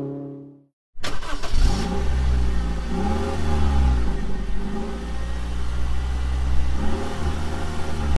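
Car engine running with a deep steady rumble, revving up and down several times. It starts about a second in, after a brief silence.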